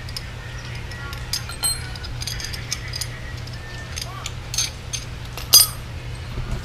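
Metal wrenches clinking and jangling as they are handled and picked out, a scatter of light metallic clicks over a steady low hum.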